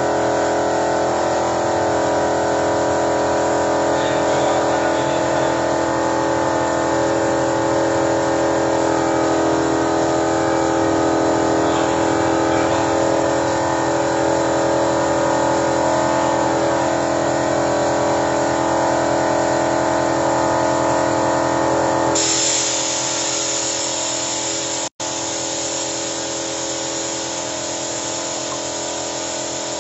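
Toyota Innova engine running steadily under the hiss and whine of a compressed-air applicator spraying carbon cleaner into it during an engine decarbonising treatment. About 22 seconds in, the hiss grows louder and brighter while the engine's lower note fades back. A split-second break in the sound comes a few seconds later.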